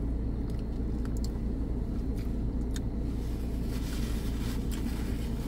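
Steady low rumble of a car idling, heard from inside the cabin, with a few faint chewing clicks and, from about three seconds in, a paper napkin rustling.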